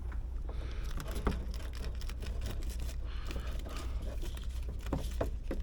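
Faint scattered clicks and rustles of handling, a slightly sharper click about a second in and a few more near the end, over a steady low hum.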